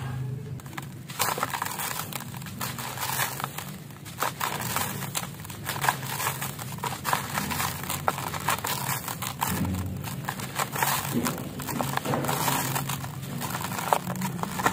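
Hands sifting and crumbling clumps of dry, gritty concrete mix: a continuous gritty crunching and crackling of breaking lumps and falling grit, with frequent small sharp crackles.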